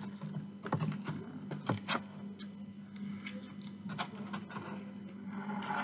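Metal fork clicking and scraping against chips and a polystyrene takeaway box, a scattered run of light clicks close to the microphone, over a steady low hum.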